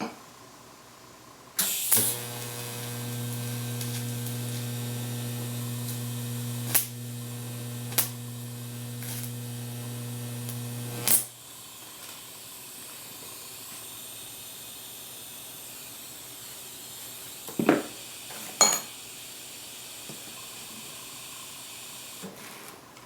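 TIG welding arc joining a steel ball bearing to a cold-rolled steel stem. The arc starts with a sharp crackle and buzzes steadily for about nine seconds, then cuts off suddenly. A softer steady hiss follows, broken by a couple of clicks.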